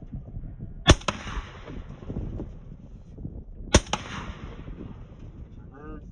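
Two rifle shots about three seconds apart, each followed a split second later by a second sharp crack, as rounds are fired into an armored minivan.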